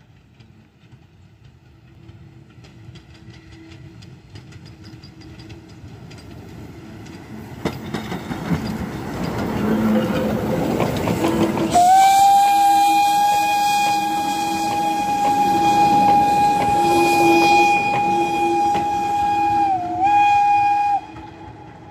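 OKz32 steam tank locomotive hauling a train of vintage carriages approaches and passes, its rumble and clatter growing steadily louder. About halfway through it sounds its steam whistle: one long steady blast of some nine seconds that sags briefly in pitch near the end, then cuts off sharply.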